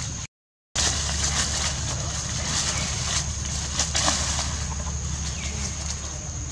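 Dry fallen leaves rustling and crackling as young macaques scamper and wrestle on them, busiest in the middle. A steady high-pitched whine and a low hum run underneath, and the sound cuts out briefly about half a second in.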